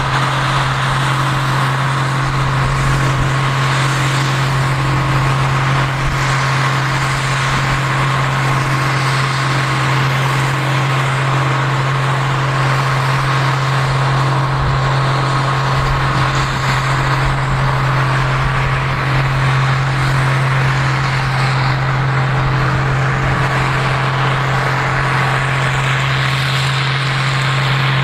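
Combine harvester running steadily under load while harvesting corn: an even engine drone with a steady whine above it, unchanging throughout.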